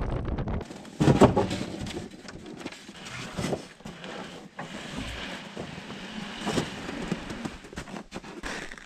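A brief low rumble of the ski-equipped Super Cub, with wind on the microphone, cuts off; then a loud thump about a second in, followed by irregular knocks, clicks and rustling as plywood sheets on the plane's lumber rack are handled.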